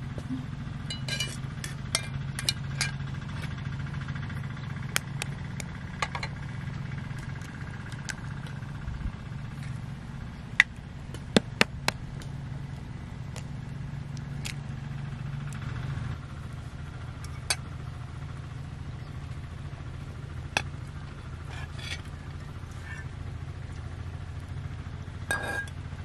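A tractor engine running steadily, with sharp clicks and knocks of potatoes being picked up and dropped onto a pile, a quick cluster of louder knocks about halfway through.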